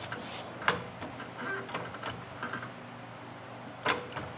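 Scattered light clicks and knocks of hand tools and metal parts being handled, with two sharper knocks, one a little under a second in and one near the end.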